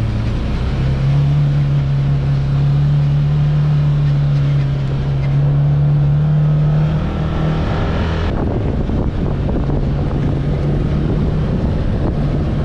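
UTV engine running steadily while driving over a sandy dirt track, heard on board over wind and tyre noise. The engine pitch rises slightly a little past the middle, and the hiss drops away about two-thirds of the way through.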